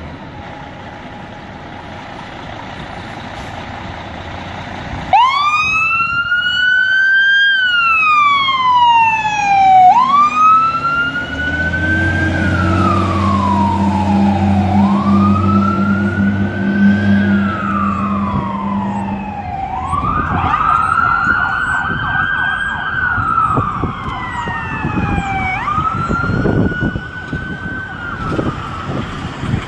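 Aerial ladder fire truck pulling out and then sounding its siren, which comes on suddenly about five seconds in and wails up and down, each rise and fall lasting about five seconds. A deep air horn holds for several seconds in the middle.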